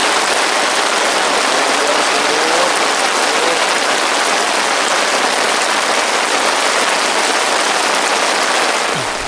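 Loud, steady hiss of falling water, like heavy rain, with a faint voice under it a couple of seconds in. The hiss fades away near the end.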